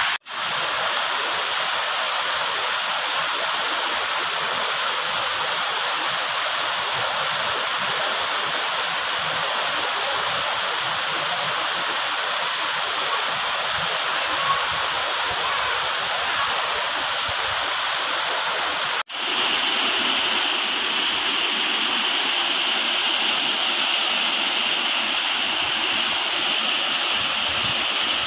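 Waterfall's steady rush of falling water. About nineteen seconds in there is a short break at a cut, after which the rush is louder and hissier.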